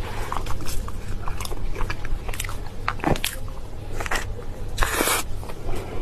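Close-miked seafood eating: biting and chewing, with many short crunching clicks and a longer noisy burst about five seconds in, over a steady low hum.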